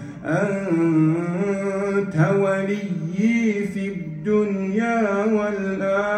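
A man's voice reciting the Quran in a slow, melodic chant, drawing out long held notes with ornamented turns in pitch. There is a short breath break right at the start.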